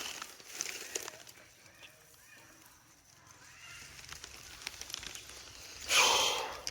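A pet monkey's short, loud, high-pitched shriek about six seconds in, after a few faint squeaks and light clicks.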